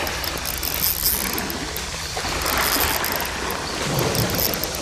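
Fishing reel being cranked with a run of quick clicks while reeling in a hooked fish, over a steady wash of water.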